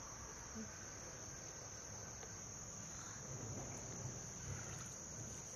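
Insects trilling steadily in a high, unbroken chorus, with faint sloshing of shallow stream water as a wader feels along the muddy bottom.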